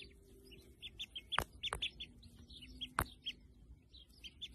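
Ducklings peeping: a scatter of short, high peeps, with two brief louder sounds about a second and a half and three seconds in.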